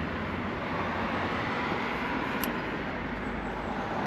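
Steady outdoor background noise, even and unbroken, with one faint light click about two and a half seconds in.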